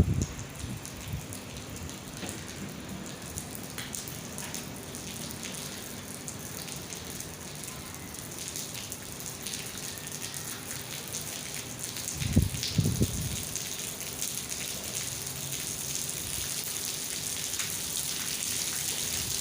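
Steady rushing hiss of water, like a spray or jet running, with a faint steady hum underneath. A brief louder low knock comes about twelve seconds in.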